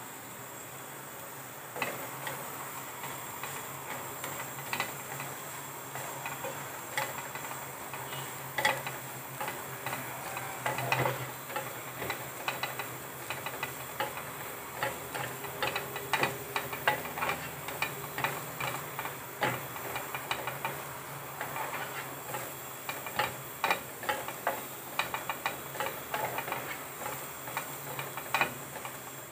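Grated coconut being stirred and dry-roasted in a pan on a low flame: a utensil scraping and clicking against the pan over a steady hiss. The stirring starts about two seconds in and continues irregularly, turning the coconut until it browns.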